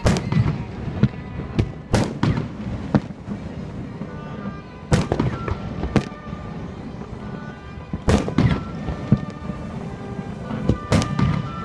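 Fireworks bursting in a series of sharp bangs, clustered near the start, about two seconds in, around five and six seconds, about eight seconds in and near the end, with music playing underneath.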